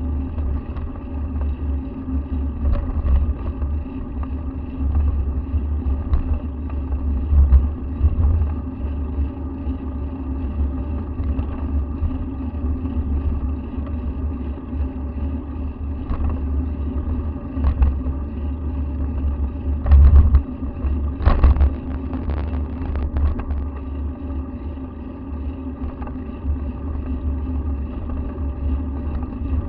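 Steady road and wind rumble from riding along a city street, buffeting the microphone in low pulses. A few sharp knocks come about two-thirds of the way through.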